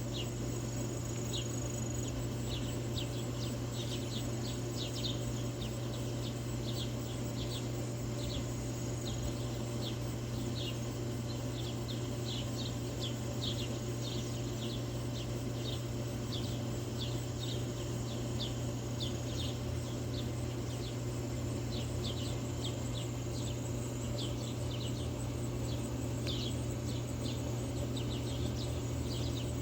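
Backyard birds chirping: a steady run of short, quick, high chirps, irregular and overlapping. Behind them, a thin high steady trill comes and goes, and a constant low hum runs underneath.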